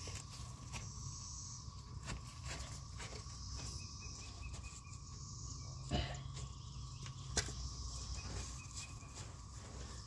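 Quiet outdoor background with insects buzzing faintly, and scattered small knocks and rustles. One of them is a little louder, about six seconds in.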